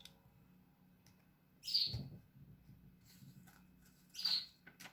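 A bird chirping twice, short high calls about two and a half seconds apart.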